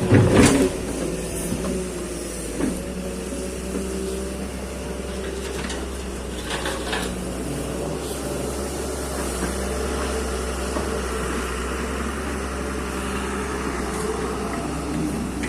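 Excavator engine running steadily, with a few faint knocks.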